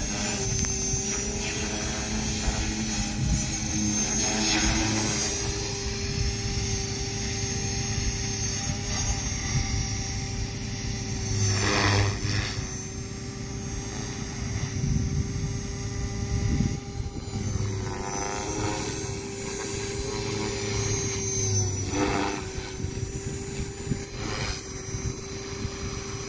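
Radio-controlled model helicopter in flight: a steady, even-pitched whine from its motor and rotor over a low rumble. The pitch dips briefly a few times, around halfway through and again near the end, with a swish each time.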